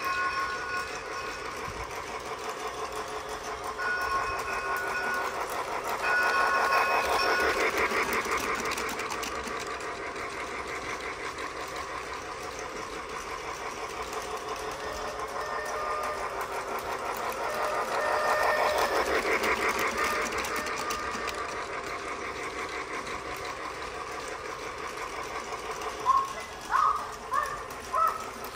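Battery-powered Lionel toy train running around its track, a steady rhythmic motor whirr and wheel clatter that swells twice as the train passes close.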